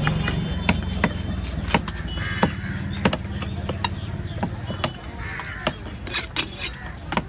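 Knife blows knocking on a wooden chopping block at an irregular pace, roughly one or two a second, as trevally is cut up at a fish market stall. Under the knocks runs a low hum that fades about five seconds in.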